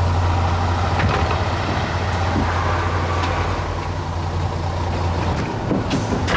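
City bus engine idling at the stop, a steady low drone under street noise. The drone breaks off a little after five seconds, and a few short clicks and knocks follow.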